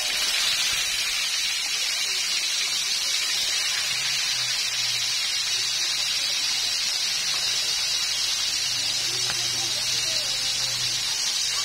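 Milkfish steaks frying in hot oil in a wok: a loud, steady sizzle.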